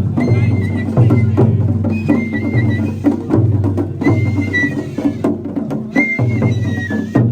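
Japanese festival music: a high bamboo flute plays a bending melody over quick, steady drumming.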